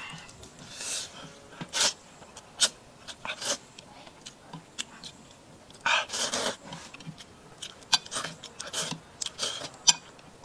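A man slurping and chewing noodles: a series of short sucking slurps, with a longer, louder slurp about six seconds in and small wet mouth clicks between.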